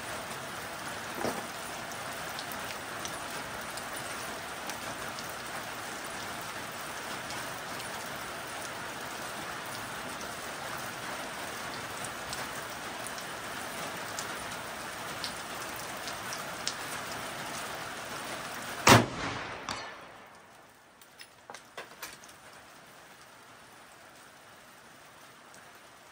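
Steady rain falling, then about two-thirds of the way through a single shot from a Seekins Havak PH2 bolt-action rifle in 6.5 Creedmoor, much the loudest sound, followed by a few faint clicks.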